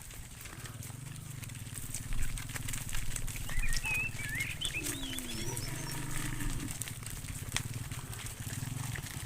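Cattle lowing in long, deep moos, with birds chirping briefly in the middle.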